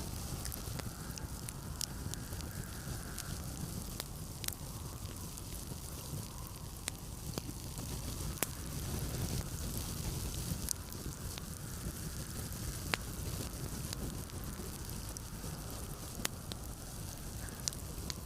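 Wood fire crackling in a fireplace, with scattered sharp pops, over a steady low rush of blizzard wind.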